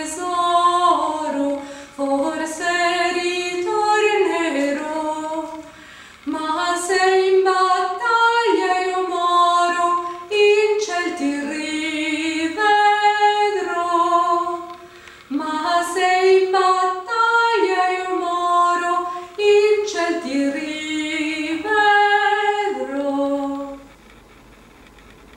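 A woman singing alone, unaccompanied, a slow melody in sung phrases with short breaths between them; the song ends shortly before the close.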